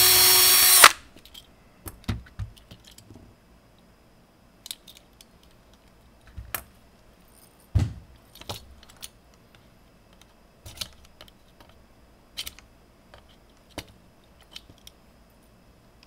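Cordless drill running at a steady pitch as it drills out a rivet, cutting off sharply about a second in. Then scattered light clicks and knocks of small metal parts and tools being handled.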